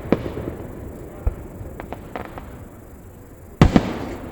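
Fireworks shells bursting, with a rumbling echo between the reports. A sharp bang comes right at the start, a low thump about a second in, and a few small crackles around two seconds. The loudest is a double bang near the end.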